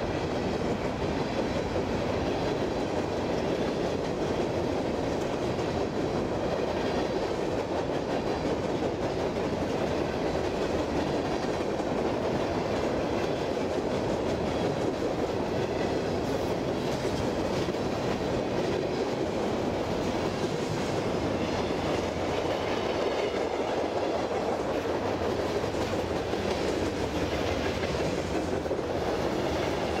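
A fast-moving freight train's cars, loaded rock gondolas and then tank cars, rolling past close by. Their wheels make a steady running noise and clickety-clack on the rails.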